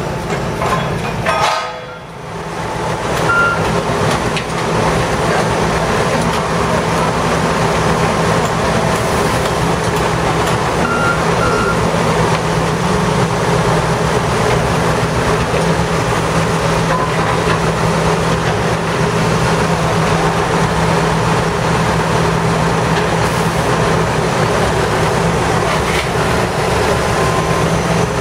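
Heavy diesel construction machinery running steadily, a continuous engine drone, with a few short high beeps in the first half.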